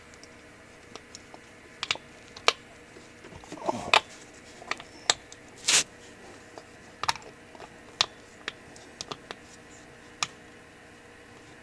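Irregular metallic clicks and taps of a socket, extension and drain plug against the ATV's engine case as the plug is worked at to catch its threads, with a couple of brief scraping rustles.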